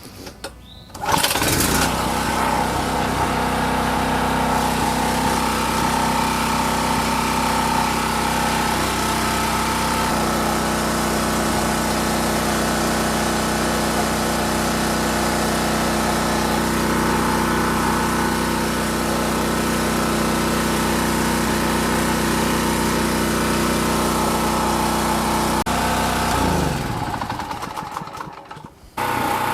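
Champion 4000-watt generator's single-cylinder engine starts about a second in and runs steadily, its tone shifting about ten seconds in. Near the end it slows and stops.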